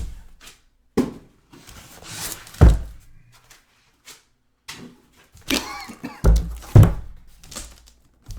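Sealed card boxes being handled and set down on a table: several dull thunks, two of them louder, with rustling of the boxes' wrapping between them.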